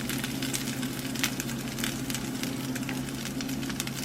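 Corn tortillas dipped in birria consomé, topped with cheese and beef, sizzling on a hot comal: a steady crackle with scattered sharper pops, over a steady low hum.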